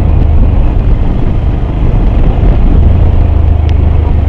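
Loud, steady low rumble from on board a vehicle driving along a road, with one short click near the end.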